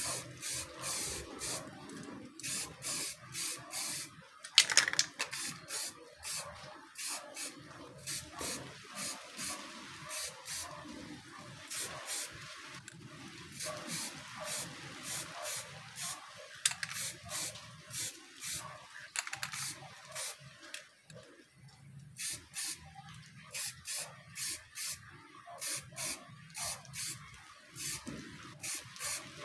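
Aerosol spray-paint can hissing in short, quick bursts, about two a second, as a lemon-yellow top coat goes onto a mountain bike fork. A brief lull about two-thirds through, and one sharper click about five seconds in.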